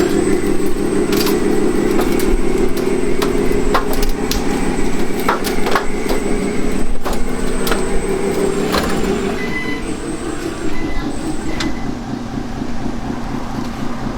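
Truck engine running steadily, with scattered sharp clicks and knocks over it; the engine sound changes and eases off a little after about nine seconds, with a few short high beeps around then.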